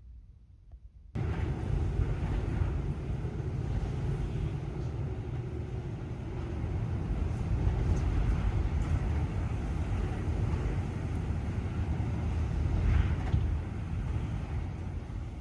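Typhoon storm wind blowing hard and steadily, heaviest in a deep rumble, cutting in suddenly about a second in.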